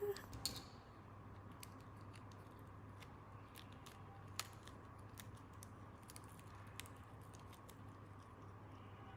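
Faint, scattered small clicks and ticks from small plastic toy pieces being handled, with one louder click about four seconds in, over a steady low hum.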